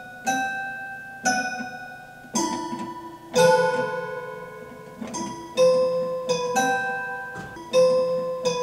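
Old upright piano played slowly, a few notes struck together about once a second, each left to ring and fade, making a weird, eerie tune.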